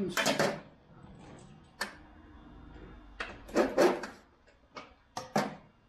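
Wrench tightening an engine's oil drain plug: a few scattered clicks and knocks of the tool with handling noise, including one sharp click about two seconds in and a cluster of louder scrapes around three to four seconds in.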